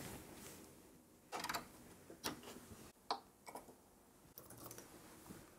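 A few faint, scattered clicks and light handling noises, short and unevenly spaced, as a USB cable is plugged in and the mouse is handled on the bench.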